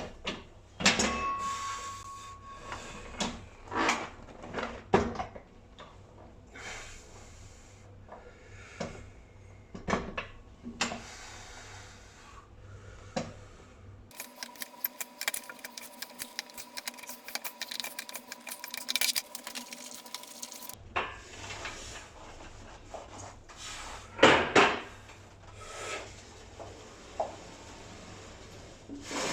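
Gym equipment being handled and set up: scattered knocks and clanks of metal weights and machine parts, with some rubbing and scraping and a few louder bangs. For several seconds midway there is a quick run of light ticks over a steady hum.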